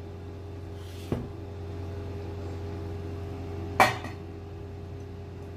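Stainless steel lids and plates being set down over steel bowls: a light knock about a second in, then a sharp metal clink near four seconds in, over a steady low hum.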